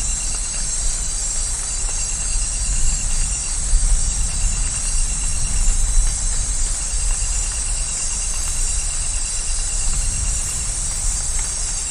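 Steady rain hissing over a low, rolling rumble of distant thunder that swells near the start and again near the end. Through it, a night animal's high, rapid pulsing call repeats in short runs.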